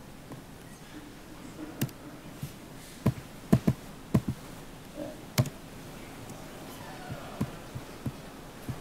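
Scattered sharp taps and clicks from a laptop's keys and touchpad being worked, with a bunch of louder ones in the middle and fainter ones after.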